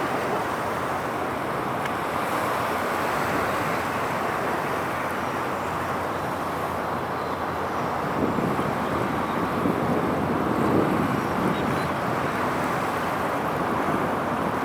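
Steady outdoor noise of wind on the microphone and a distant traffic hum, swelling for a few seconds past the middle.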